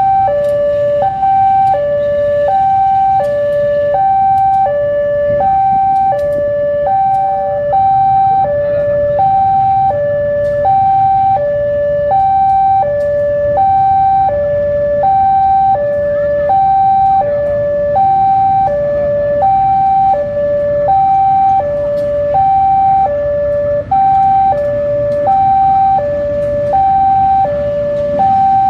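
Railway level-crossing warning alarm sounding an even alternating two-tone chime, a high note and a lower note each about two-thirds of a second, repeating without a break. Under it runs the low rumble of a slow-moving CC 203 diesel-electric locomotive.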